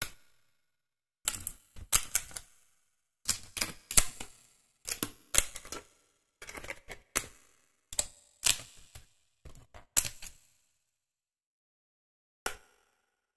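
Die-cut 3D puzzle pieces being popped out of their printed sheet: quick clusters of sharp snaps and clicks that stop about ten seconds in, with one more click near the end.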